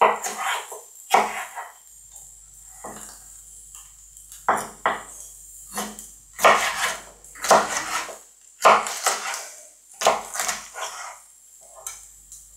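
Chef's knife dicing a red bell pepper on a wooden cutting board: irregular bursts of quick knocks with short pauses between.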